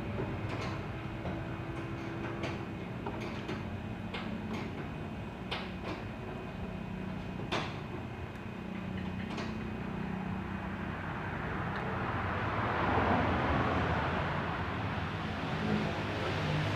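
Scattered light metallic clicks and taps of hand tools working on motorcycle engine parts, over a steady low hum. The hum swells into a broader rushing noise for a few seconds in the latter part.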